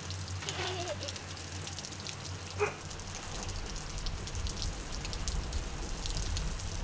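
Water from a hose spray pattering like heavy rain on a felt hat brim and waterproof coat and splashing onto a wet wooden deck. A low rumble joins about three seconds in.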